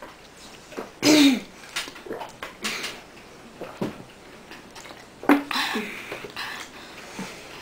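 Boys drinking water fast from plastic bottles: short breathy vocal bursts and throat sounds, loudest about a second in and again past the middle, with a few sharp knocks between.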